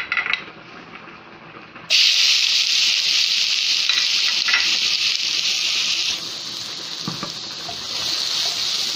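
Chopped onion dropped into hot fat in a pot: a sudden loud sizzle starts about two seconds in and carries on as a steady hiss, easing a little partway through and picking up again near the end.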